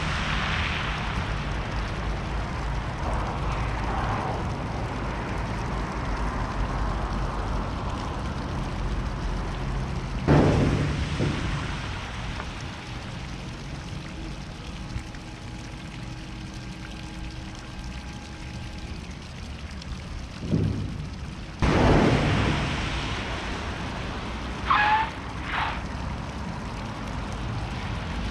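Tesla cars sliding across a wet skid plate, their tyres hissing through the water spray over a steady low rumble. Sudden louder surges come about ten seconds in and again about twelve seconds later, and two short squeaks near the end.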